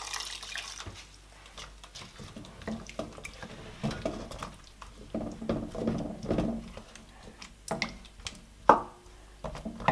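Water poured briefly into a pot of ground egusi and meat, then a wooden spoon stirring the thick wet mixture with soft squelching scrapes. A single sharp knock near the end.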